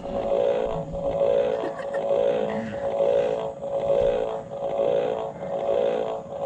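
Toy shock lie detector giving off a steady electronic buzzing tone that swells and fades about once a second.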